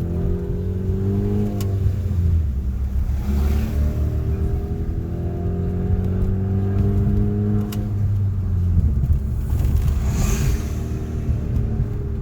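Exhaust of a Hyundai Veloster Turbo's 1.6-litre turbocharged four-cylinder, run with a muffler delete, pulling hard through the gears. Its revs climb, drop away in a short pause at an upshift about two seconds in and again about eight seconds in, then pick back up. The automatic gearbox is shifted by paddle with the driver off the gas, which gives the rev-matched gap of a manual gearbox.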